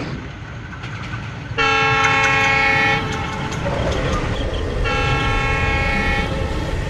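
A diesel locomotive's horn sounds two long blasts, each about a second and a half, over the steady rumble of the approaching train. The first blast is the louder.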